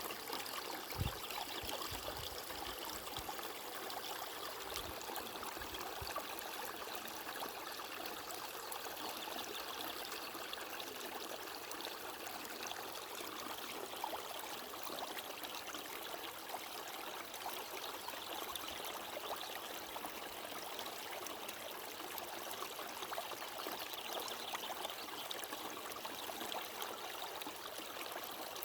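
Water flowing in a small stream, a steady babbling and trickling with no pauses. A few brief low thumps come in the first several seconds.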